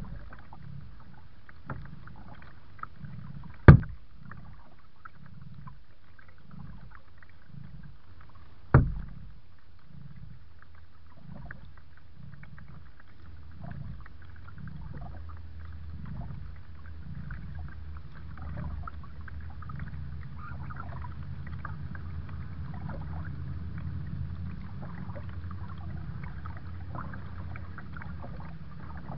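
Kayak being paddled: water splashing and dripping with a rhythmic low thumping about twice a second. Two sharp knocks come about four and nine seconds in, and a steadier low rumble takes over in the second half.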